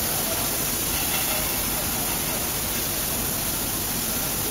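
Steady hissing noise of an automatic compressed wood pallet production line running, as the feeder spreads wood shavings into the hydraulic press mould.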